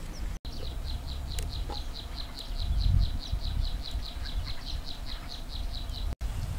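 High, rhythmic chirping from a small animal, about five chirps a second, over a low rumble; the chirping cuts off abruptly near the end.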